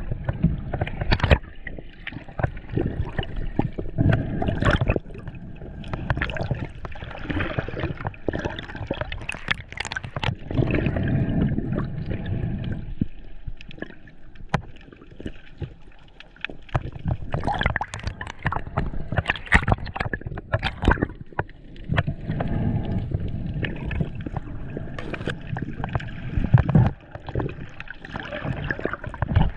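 Underwater sound heard through an action camera's housing: churning, bubbling water from breaking surf, swelling and easing in surges, with scattered sharp clicks and knocks.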